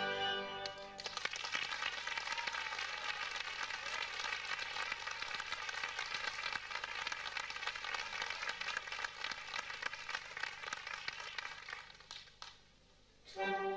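Theatre audience applauding after the music ends about a second in; the clapping dies away near the end, and the music starts again just before the end.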